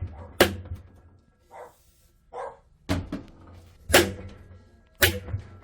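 Hammer blows on metal during a drum washing machine bearing replacement: four sharp strikes at uneven spacing, each with a short metallic ring, and two softer knocks in between.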